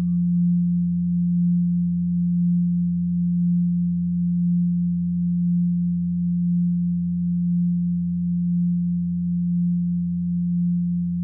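A steady, low synthesized drone tone from the musical score, holding one pitch and swelling gently in loudness about once a second.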